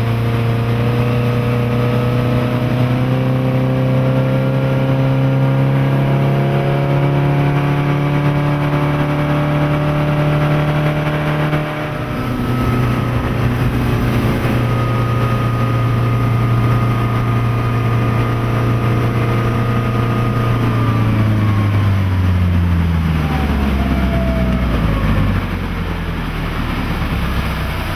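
A 2008 Chaparral 180 SSi bowrider's Volvo Penta 3.0 GL four-cylinder sterndrive engine running under way at speed, with the rush of water and wind. The engine climbs slightly in pitch over the first dozen seconds and breaks off abruptly about twelve seconds in, then holds steady. Its pitch falls away over the last few seconds as the boat slows to a low rumble.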